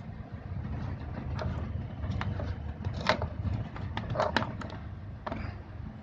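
Top-loading washing machine running under power: a steady low hum with a few sharp knocks scattered through it.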